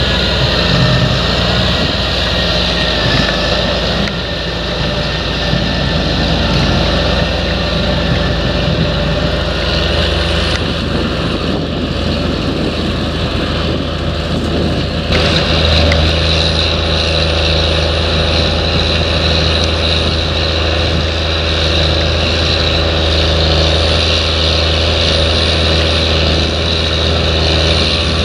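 Diesel engines of large tractors working under load in the field: a Fendt 930 pulling a reversible plough, and a Cat Challenger MT765 crawler near the end. A steady low drone that changes abruptly a few times.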